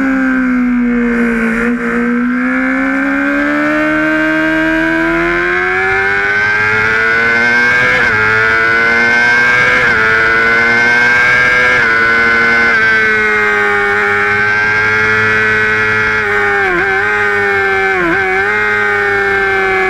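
A Honda sportbike's engine running hard on track, heard onboard. The note falls as the bike slows at first, then climbs steadily, with three brief dips at gear changes midway. It drops again with two short dips near the end as the bike slows.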